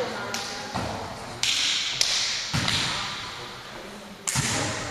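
A volleyball being struck several times during a rally, six sharp, echoing hits in an indoor gym hall, with players' voices.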